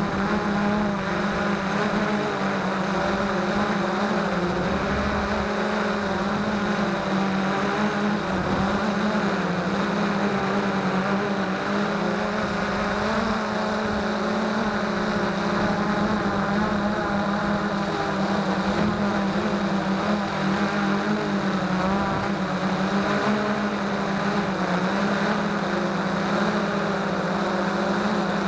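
Freex Skyview quadcopter's motors and propellers in flight, heard close up through the onboard camera: a steady buzzing hum whose pitch wavers slightly as the motors adjust speed.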